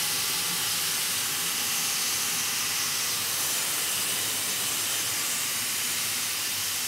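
Both safety valves of a GWR 57xx pannier tank steam locomotive lifting and blowing off steam at 200 psi, a steady hiss. This is the boiler's accumulation test: with both valves fully open, the pressure rises no further.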